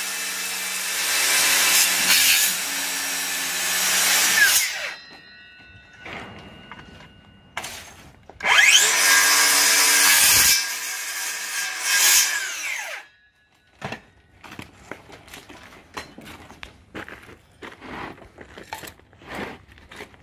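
DeWalt 54V cordless circular saw cutting through a 50 mm AAC (autoclaved aerated concrete) panel in two cuts: one ending about four and a half seconds in, the other from about eight and a half to thirteen seconds in, each finishing as the blade winds down. Light knocks and scrapes follow as the cut panel is handled.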